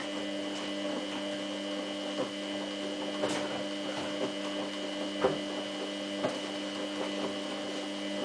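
Samsung WF8804RPA washing machine running with a steady electrical hum, and a few soft knocks from inside the drum.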